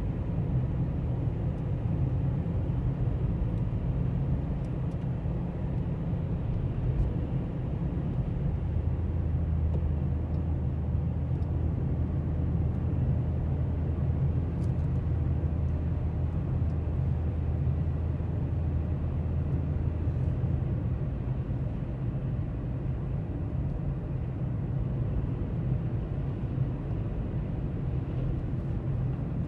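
A vehicle engine running steadily with a low hum, which deepens for about twelve seconds in the middle.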